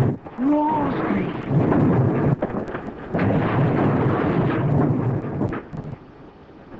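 Blast of buried blasting powder, a film sound effect: a long, heavy rumble that dies down about five and a half seconds in, with a short wavering tone about half a second in.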